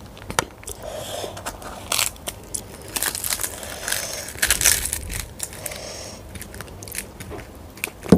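Close-miked eating by hand: fingers working through cooked rice, then a deep-fried puri being torn apart with crackly rustling, loudest about four and a half seconds in. Many sharp little clicks run through it.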